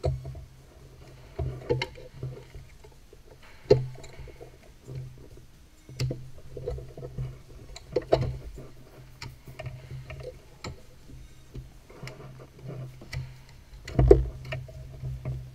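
Plastic wiring-harness plugs being unclipped from a car's engine ECU and the ECU module handled and lifted out, giving scattered clicks and knocks, the loudest a thump near the end. A steady low hum runs underneath.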